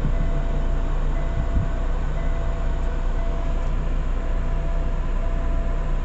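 A steady low mechanical drone with a faint constant whine, unchanging throughout.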